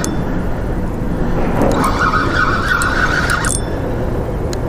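Fishing reel's drag buzzing as a big blue catfish pulls line off. It starts about two seconds in and stops sharply after about a second and a half, over a steady rushing noise.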